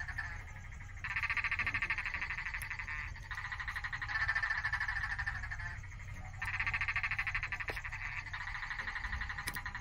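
Frogs calling in rapid pulsed trills. Two callers of slightly different pitch take turns in bouts of one to three seconds.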